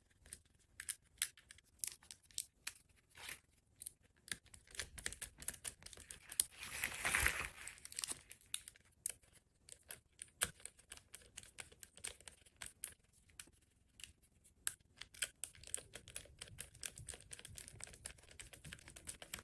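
Hands fitting heavy power cables and their terminals to an electric compressor: faint scattered clicks, taps and rustles, with a longer rasping rustle about seven seconds in.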